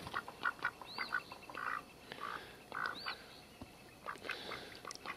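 Mallard drake giving a few soft, short calls while dabbling in shallow water, with scattered small clicks and splashes. Two thin, high chirps sound in the background, about a second in and again about three seconds in.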